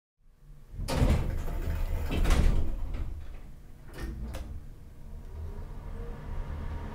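Logo-sting sound design: two loud, noisy whooshing swells about one and two and a half seconds in, then two sharp clicks around four seconds, over a steady low rumble.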